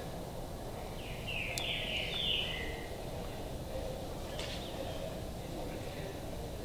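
Steady low workshop background noise, with a brief high chirping sound starting about a second in and lasting about a second and a half.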